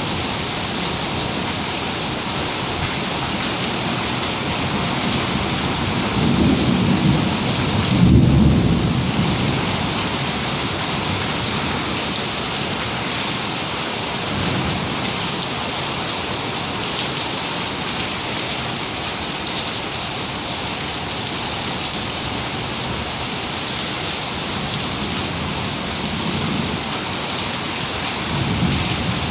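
Steady rain with low rolls of thunder: the loudest rumble comes about eight seconds in, fainter ones come around fifteen and twenty-six seconds, and another builds near the end.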